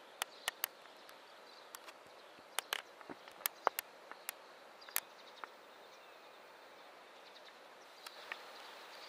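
Quiet outdoor ambience with a faint high chirping and scattered sharp clicks and ticks, several in the first half and a couple near the end; the chime itself is not sounding.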